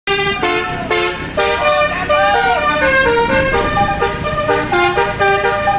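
Indonesian bus 'telolet' multi-tone horn playing a quick tune of short notes, jumping between pitches several times a second.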